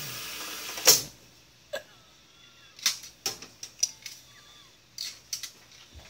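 Steady hiss of dental cleaning equipment that cuts off with a loud click about a second in as the cleaning pauses. After it come scattered small clicks and a few faint wavering squeaks.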